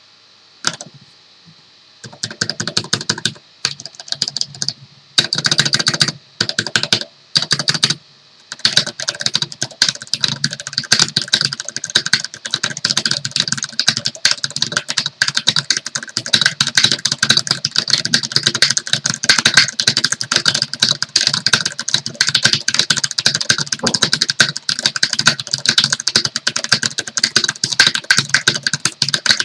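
Typing on a custom 60% mechanical keyboard with Cherry MX Red linear switches on a KBD6X hot-swap PCB and an aluminium plate. Scattered keystrokes at first, then a few short runs of rapid presses, then fast continuous typing from about eight seconds in.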